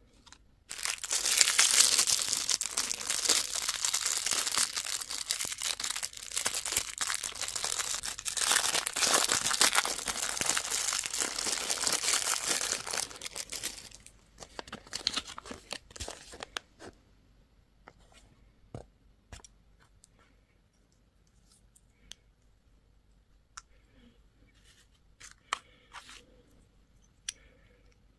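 A crinkly candy or toy wrapper being torn open and crumpled for about thirteen seconds, then a few scattered small clicks and crinkles as the handling slows.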